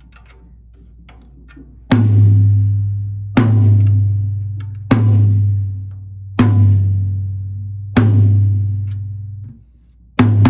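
A tom with a clear Remo head, struck with a drumstick six times about every one and a half seconds after a couple of seconds of faint ticks. Each hit gives a low note that rings and fades, and the fifth ring is cut off suddenly. The drum is tuned loose, with only two opposite lugs brought up, so the note dives in pitch after each hit.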